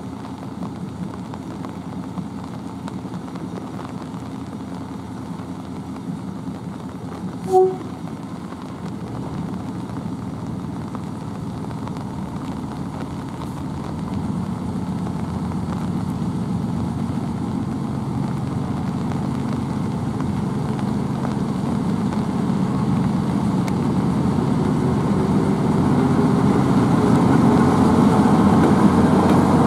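Diesel locomotive engine running at idle, with a brief horn toot about eight seconds in, then the engine working harder as the train pulls away from the station, growing steadily louder with a rising engine note as it approaches.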